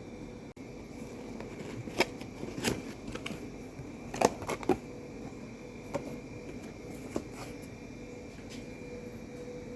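Packaging being handled as a boxed angle grinder is unpacked: a scattering of short rustles, clicks and taps, with a faint steady hum underneath.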